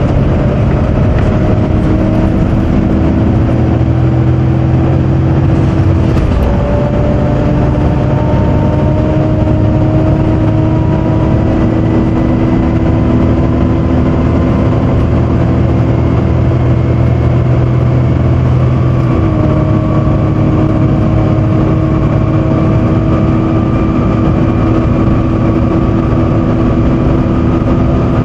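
Volvo B7TL double-decker bus's 7-litre Volvo D7 diesel and drivetrain heard from inside, over the drone of its loud cooling fan. The whine rises slowly as the bus gathers speed and drops back at gear changes about six seconds in and again about nineteen seconds in.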